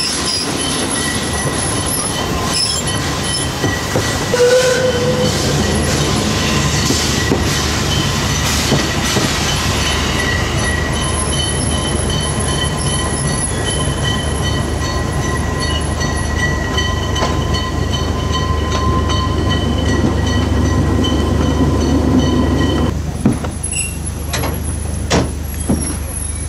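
Narrow-gauge steam train heard from its carriage while running: a steady rumble of wheels on rail with a thin, steady squeal from the wheels. About 23 seconds in the rumble falls away as the train slows alongside a station platform, leaving a few sharp clicks.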